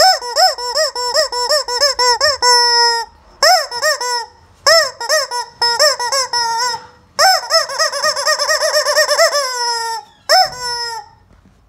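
Yellow rubber screaming chicken toy squeezed over and over, giving loud squawks that rise and fall quickly. They come in several fast runs with short pauses between, some drawn out into a long held honk, and a single squawk near the end.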